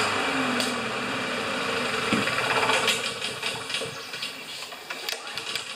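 Lawn-Boy mower's small Honda four-stroke engine running, with the old BPR5ES spark plug fitted as a test of whether that plug is the cause of the mower quitting. It grows quieter through the second half.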